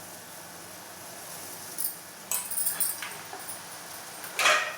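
A spoon clinking against the pot as spice powder is stirred into the boiling decoction: a few light clinks a couple of seconds in and a louder clank near the end. Underneath runs a faint steady hiss from the pot on the boil.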